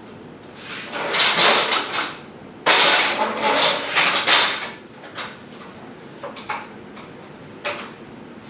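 Metal scraping and clanking as a steel garage door track is rotated by hand to swap the top roller, in two long rattling stretches followed by a few short clicks.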